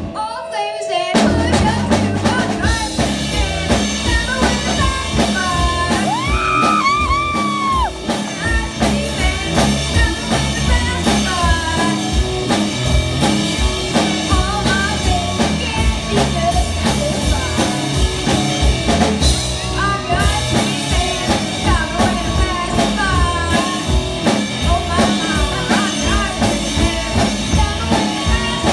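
Live rock band of electric guitars, bass and drum kit playing a blues-rock song, with a boy singing lead. The band drops out briefly and comes back in about a second in.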